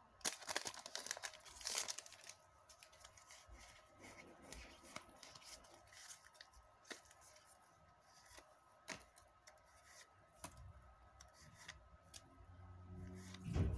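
Foil wrapper of a Pokémon trading-card booster pack torn open, with a crackling rip in the first two seconds, then scattered crinkles and clicks as the wrapper and cards are handled. A low bump comes near the end.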